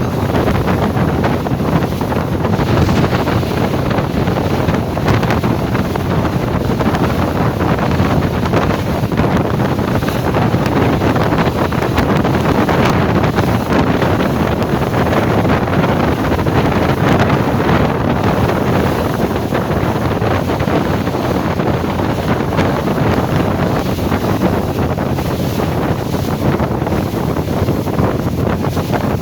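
Steady, loud wind buffeting the microphone, with the rush of sea and waves beneath.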